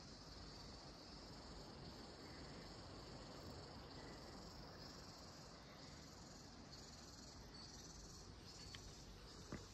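Faint, steady high-pitched chirring of insects, swelling and fading in a slow pulse, over low outdoor hiss. One short click near the end.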